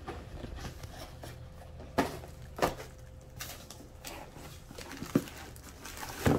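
Cardboard shoeboxes and packaging being handled: a few sharp knocks and some rustling over a low room hum.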